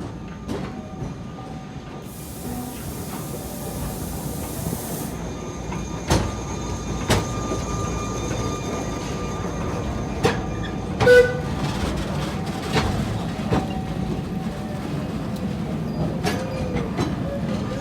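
Train rolling along the track and growing slowly louder, its wheels clicking in pairs over rail joints, with brief wheel squeals about 11 and 16 seconds in.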